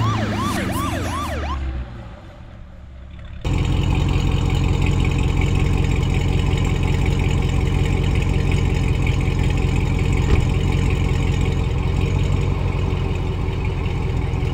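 Police car siren in fast repeated sweeps, about three a second, stopping about a second and a half in. After a short lull, a steady low engine rumble starts abruptly and runs on: a car engine idling.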